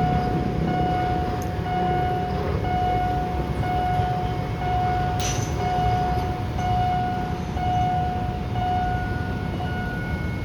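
Railway level-crossing warning signal sounding a steady tone about once a second, over the low rumble of a train on the line. There is a short sharp click about five seconds in.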